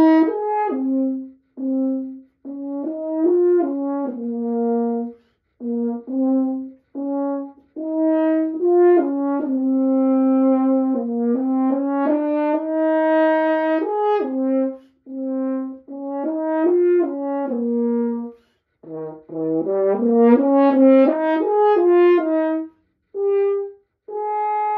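Meister Hans Hoyer 7801 Kruspe-wrap double French horn, freshly reassembled, being play-tested: phrases of held notes and short runs separated by breaths, with a dip to lower notes and then quicker higher notes near the end. A big, fat sound.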